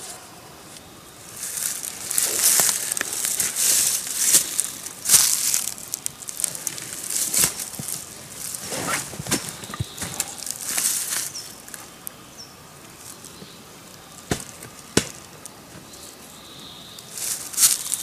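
A hiker walking through forest undergrowth: irregular rustling of brush and clothing with footsteps, and a few sharp clicks.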